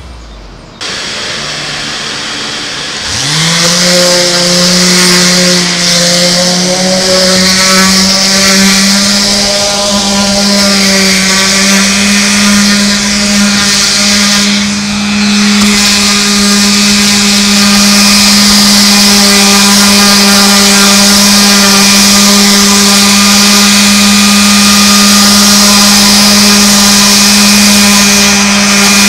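A motor starts about three seconds in, spins up within half a second to a steady high speed and runs evenly to the end, after a short stretch of hiss.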